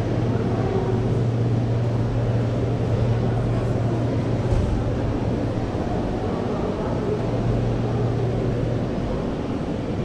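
Indoor market hall ambience: a steady low drone, fading about nine seconds in, under a faint murmur of shoppers' voices.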